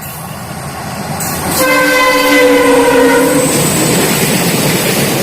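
A WDG5 diesel-electric freight locomotive sounds one horn blast of about two seconds, starting about a second and a half in, over the low rumble of the locomotive and train growing steadily louder.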